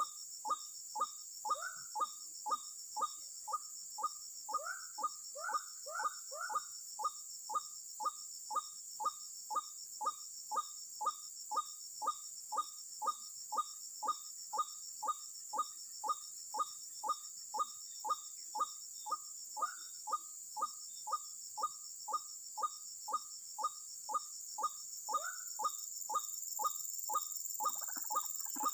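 White-breasted waterhen (ruak-ruak) calling: a long, very regular series of short downward-sliding croaks, about two and a half a second. Near the end the calling gets denser, with lower, faster notes joining in. A steady high buzzing runs underneath.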